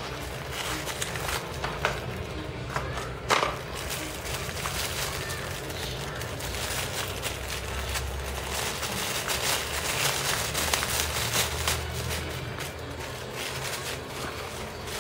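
Handling noise as a small cardboard box is opened, with a sharp knock about three seconds in, followed by a clear plastic bag crinkling and rustling as the phone holder is unwrapped.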